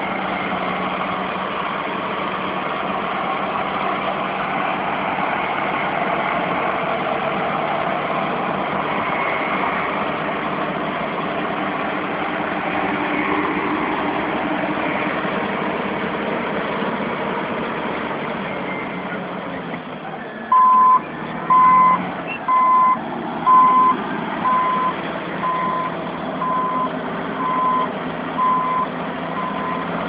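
Caterpillar D8N bulldozer's diesel engine running steadily under load while pushing dirt. About two-thirds of the way in the engine eases off, and the reversing alarm starts beeping at one steady pitch, about once a second, as the dozer backs up.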